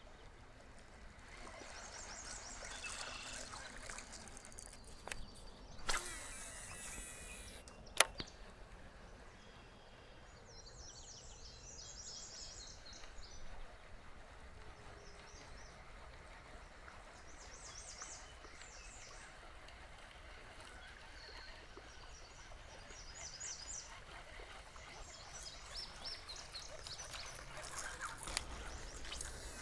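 Quiet riverside ambience with birds singing in short high phrases every few seconds. A brief hiss comes about six seconds in and a single sharp click about eight seconds in.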